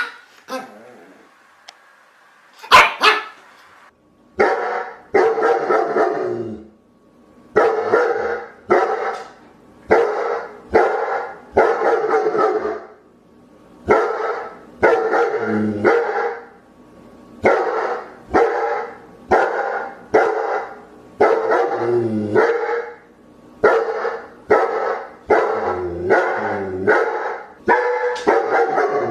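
Dog barking: two sharp barks near the start, then from about four seconds in repeated barking in quick runs of two to four barks with short pauses between.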